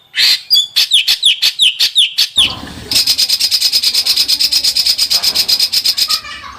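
Small songbird singing: a quick series of downslurred chirps, then a long, rapid, buzzy trill, many notes a second, that stops just before the end.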